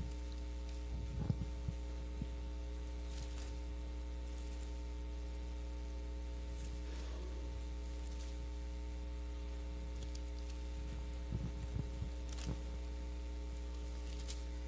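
Steady electrical mains hum with several steady tones, with a few faint rustles and soft knocks as the pages of a Bible are turned.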